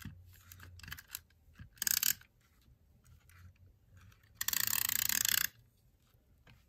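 Tombow tape pen run along paper to lay down adhesive in two strokes, a short one about two seconds in and a longer one of about a second past the middle. Light handling and rustling of the paper in between.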